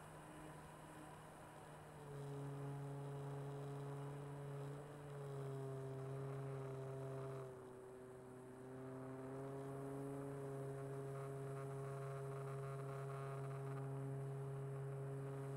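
Electric motor and propeller of a radio-controlled ParkZone Corsair F4U model plane, heard from its onboard camera, droning at a steady pitch. The drone steps up about two seconds in, drops lower and quieter for about two seconds a little past the middle, then comes back and holds.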